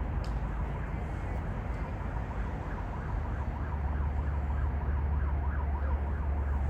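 A distant emergency-vehicle siren, its pitch swinging quickly up and down, rising above steady low rumble about a third of the way in.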